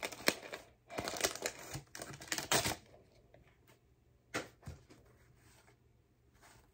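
Paper wrapper of a basketball trading-card pack crinkling and tearing as it is opened by hand, in dense bursts over the first three seconds. After that come a few short rustles as the cards are handled.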